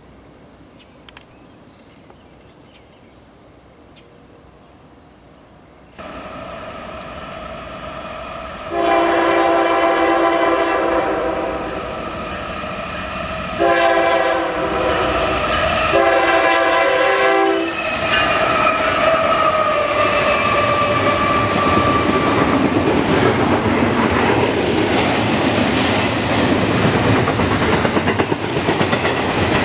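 CSX GE ES44AH diesel locomotive approaching and sounding its multi-chime air horn in three blasts, the first the longest. It then passes close by with engine noise, followed by the steady rumble and clickety-clack of double-stack intermodal cars rolling past.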